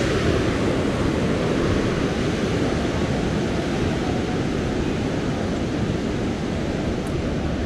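Ocean surf breaking and washing beneath the pier, a steady rushing noise, mixed with wind buffeting the microphone.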